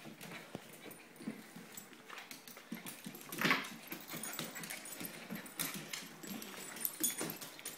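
Excited Maltese dog making small dog sounds while jumping about on a hardwood floor, with a stream of quick clicks and scuffs from her claws and paws, and one louder sound about three and a half seconds in.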